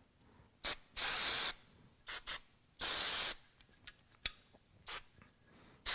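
Aerosol can of Rem Action Cleaner sprayed in a series of hissing bursts into a rifle's upper receiver. The longer bursts last about half a second each, with shorter puffs between them.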